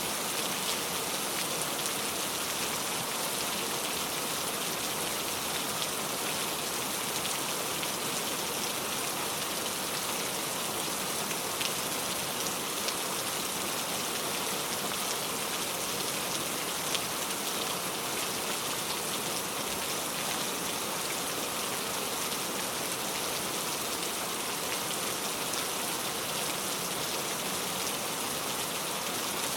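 Heavy rain falling steadily, a dense even hiss with scattered sharp drop impacts.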